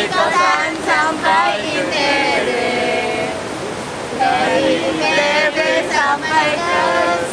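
A small mixed group of young women and a man singing and chanting a yel-yel group cheer in unison, in short phrases with some held notes and a short break about halfway through. A steady rushing noise runs underneath.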